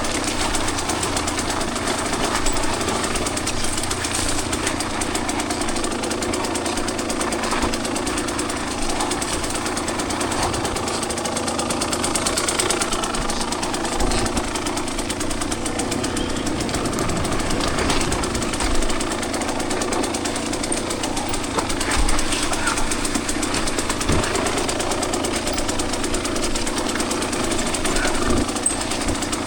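Two-stroke dirt bike engine running steadily while riding, with a few brief thumps along the way.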